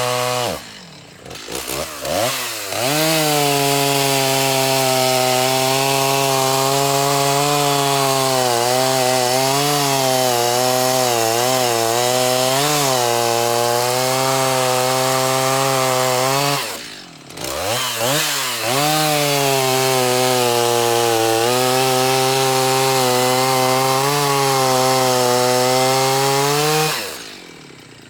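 Stihl chainsaw running at full throttle while cutting wood, its pitch sagging and recovering as the chain loads in the cut. The engine drops off throttle briefly about a second in and again around two thirds through, then revs back up, and it falls off again near the end.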